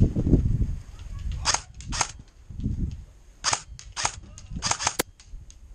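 Airsoft gun shots: a string of sharp single cracks at uneven intervals, about eight of them from about a second and a half in, some in quick pairs. A low rumble of movement comes in the first half second.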